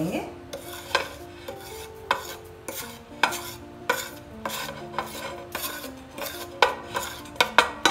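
A utensil scraping dry-roasted cumin seeds off a flat iron tawa in quick repeated strokes, about two to three a second, the sharpest strokes near the end. Soft background music underneath.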